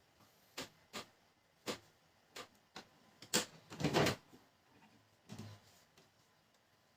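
Scattered sharp clicks and knocks of plastic printer parts being handled and fitted, with a short clattering rattle about three and a half seconds in.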